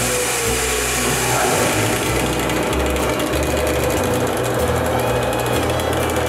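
Benchtop band saw running and cutting through a wooden axe-handle blank: a steady machine whine under the rasp of the blade in the wood. In the first moment a belt sander is still heard, and a tone falls in pitch.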